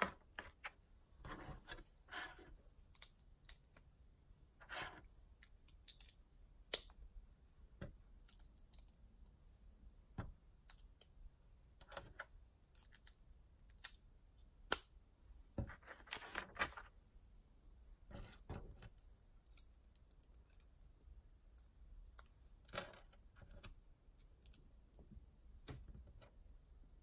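LEGO bricks being handled and snapped together: scattered sharp plastic clicks at irregular intervals, with soft rustles of small parts being picked up and turned in the hands.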